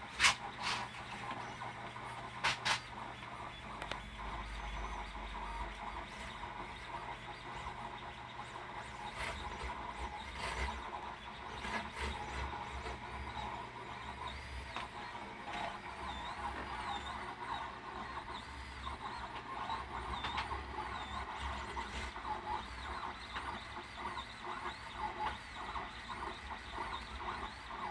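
A 3D printer running, its stepper motors whining in tones that waver up and down as the print head moves, over a steady mechanical hum with light irregular ticking. There are sharp clicks about half a second in and again around two and a half seconds in.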